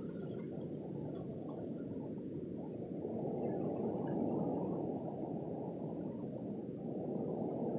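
Low, rushing noise of wind and surf along a rocky shoreline, swelling about three seconds in and again near the end.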